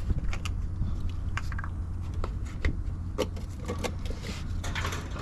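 A scatter of short clicks and knocks, like small objects being handled, busiest about three to five seconds in, over a steady low rumble.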